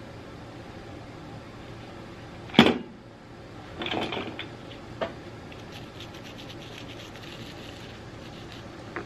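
Solenoid valve parts being washed by hand in a stainless steel bowl of soapy water: one sharp knock about two and a half seconds in, a burst of sloshing about four seconds in, then quick light scrubbing with a toothbrush. A steady low hum runs underneath.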